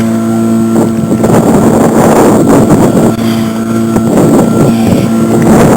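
Outboard motor of a small aluminium dinghy running steadily at one pitch, with wind rushing on the microphone.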